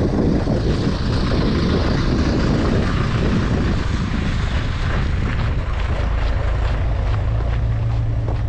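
Wind rumbling on the microphone, then a motor vehicle's engine hum that grows steady and stronger over the last few seconds.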